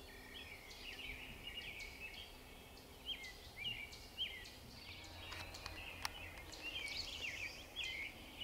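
Songbirds singing in a chorus of short, quick chirping notes, with one sharp click about six seconds in.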